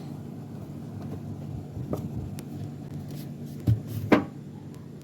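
A few sharp knocks over a steady low hum; the loudest knock comes about four seconds in.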